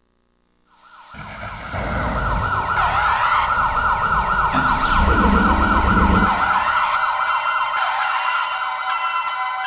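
Synthesized siren sound effect from a TJ Media WOW-7800 karaoke machine: a fast-warbling electronic wail that starts about a second in, over a low rumble that stops around six seconds, with chiming bell-like tones coming in near the end.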